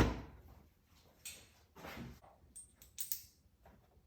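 Hand tools working a seat mounting bolt out: a sharp knock at the start, then a few scattered quiet clicks and scrapes.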